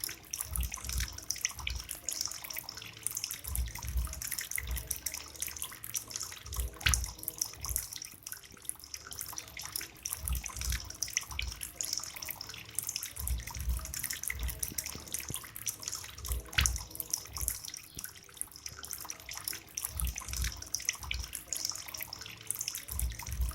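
Water trickling and splashing steadily from a small bamboo water fountain into its basin, with dull low thumps every second or so.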